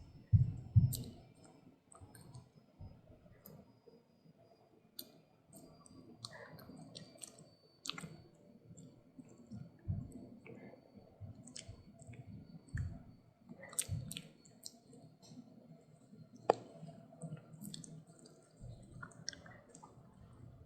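A puppy chewing and crunching a stick-shaped dog treat: scattered sharp clicks and crunches of teeth on the hard stick, with a couple of dull thumps about half a second in.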